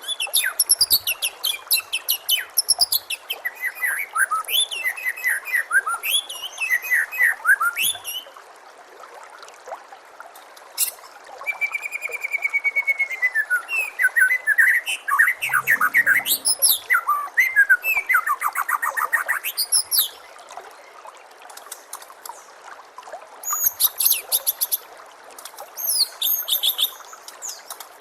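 White-rumped shama singing in stretches of rapid, varied whistled phrases and trills, pausing about eight seconds in and again about twenty seconds in, over a steady trickle of running water.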